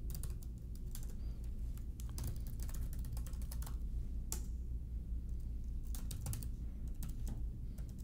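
Computer keyboard being typed on: irregular runs of quick key clicks with short pauses between them, over a steady low hum.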